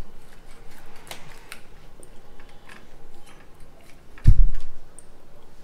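Light clicks and scrapes as a bele fish (sand goby) is cut against a boti, a curved blade fixed upright on the floor, with one loud, low thump about four seconds in.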